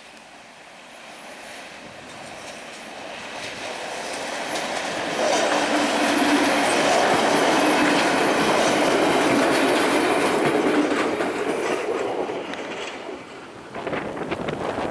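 ČSD M286.0 diesel railcar with a trailer car passing by, swelling to its loudest about halfway through and then fading as it runs away.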